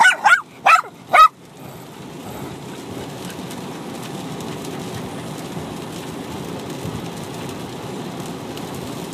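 A Bichon Frise barks four times in quick succession in the first second and a half, high and sharp, then stops. The car's steady road noise fills the cabin for the rest.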